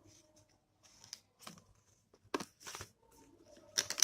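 Paper and packaging handled: rustling and crinkling with a few short sharp taps and clicks, the loudest near the end.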